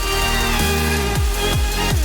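Background electronic dance music, with a steady beat and bass notes sliding downward again and again.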